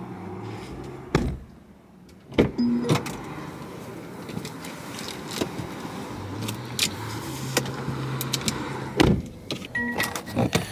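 Sounds from inside a car: a few sharp thumps, such as doors shutting or things being handled, over a low steady hum.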